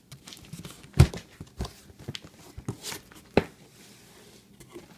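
Cardboard shipping box being opened by hand: a few sharp knocks and bumps of the cardboard flaps, the loudest about a second in, over light rustling of cardboard and packing paper.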